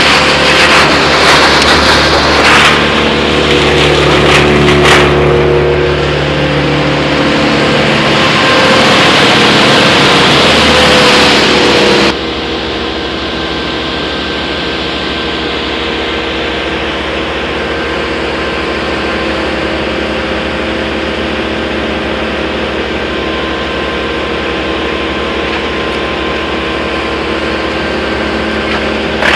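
Large wood chipper running loud with brush going through, with a few sharp cracks of wood being cut. About twelve seconds in, the sound cuts abruptly to a quieter, steady engine drone from a grapple-equipped loader, heard from its operator's seat.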